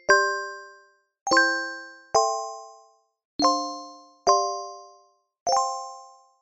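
Background music of bell-like mallet chimes: six struck chords, each starting suddenly and ringing out into silence, about one a second.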